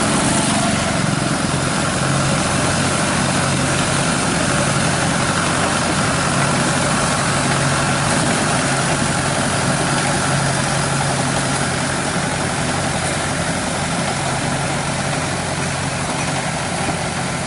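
Heavy farm machinery's diesel engine running steadily, a continuous low hum with no change in pace.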